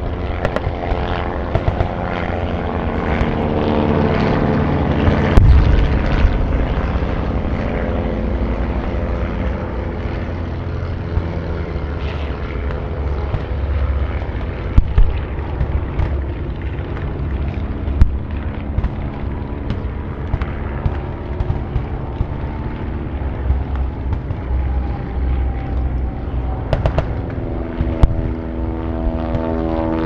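Distant battle reenactment ambience: propeller aircraft engines droning overhead, with scattered sharp cracks of gunfire and thumps of explosions, the heaviest thump about five seconds in. An aircraft engine drone grows stronger near the end.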